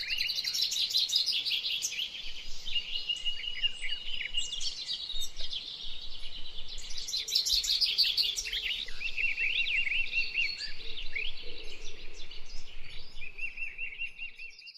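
A dense chorus of many birds chirping, trilling and calling over one another, with rapid repeated notes. The sound fades out near the end.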